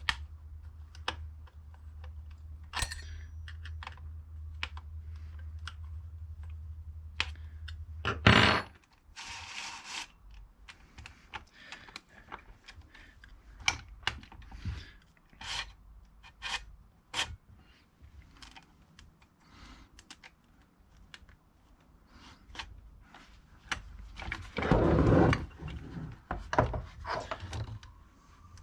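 Chainsaw chain and guide bar being handled and worked onto the clutch sprocket: scattered small metal clicks, taps and chain rattles. There is a loud clunk about eight seconds in and a longer burst of rattling near the end. A low hum stops at the clunk.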